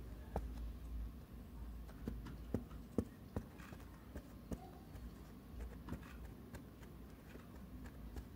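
Faint, irregular light clicks and taps from a small plastic toy animal figure being handled and walked across a carpet, the sharpest about three seconds in, over a low rumble.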